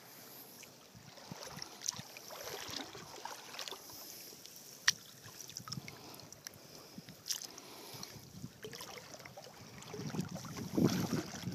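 Shallow seawater sloshing with small splashes and clicks as a gill net is handled and lifted by hand, with one sharp click about five seconds in. Wind starts buffeting the microphone near the end.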